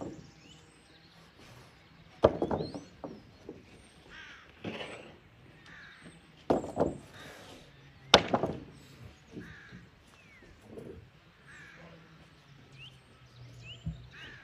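A crow caws loudly three times, a few seconds apart, while small songbirds chirp faintly.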